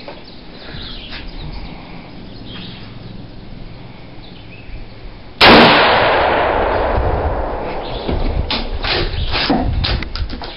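A single loud rifle shot from a Mosin-Nagant M44 bolt-action rifle (7.62×54R) about five seconds in. Its boom rings out and dies away over two to three seconds, and a run of short sharp clicks and knocks follows near the end.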